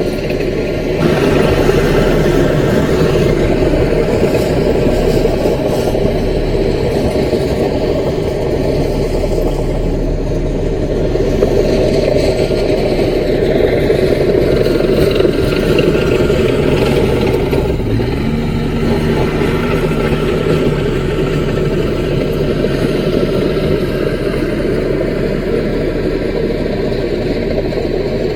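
CAT mini bulldozer's diesel engine running steadily, with a brief added steady tone about two-thirds of the way through.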